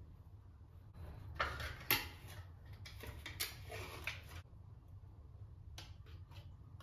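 Kitchen handling sounds: a few sharp clicks and knocks as spice containers and a spoon are handled, with crinkling as the foil seal is peeled off a plastic tub of curd. A few faint clicks follow near the end.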